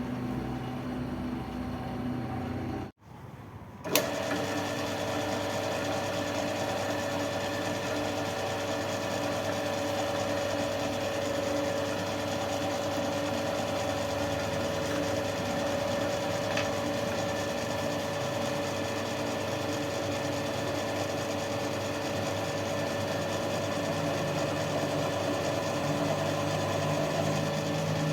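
A motor-driven machine running steadily with a constant hum. It starts after a brief drop to near silence and a sharp click about four seconds in.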